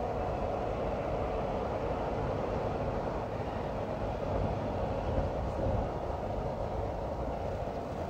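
Steady road and engine rumble inside a moving car's cabin, even throughout, with a faint steady hum above it.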